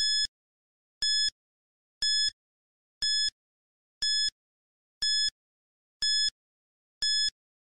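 Electronic countdown-timer beeps, one a second, marking off the seconds left to answer. There are eight short, high beeps, all of the same pitch, each about a third of a second long.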